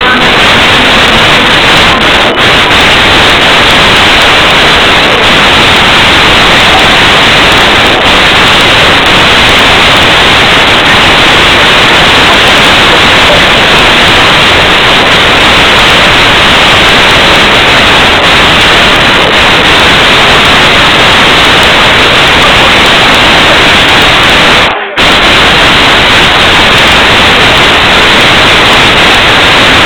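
Steady, loud static-like hiss from badly overloaded, clipped recording audio, with no beat or tune to make out, cutting out briefly about 25 seconds in.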